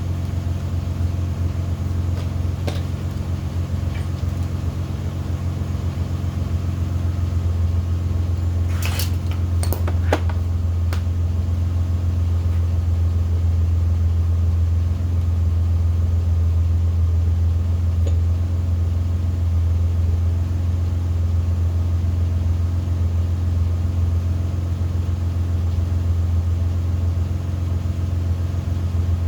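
A steady low droning hum, with a few sharp clicks about nine to eleven seconds in.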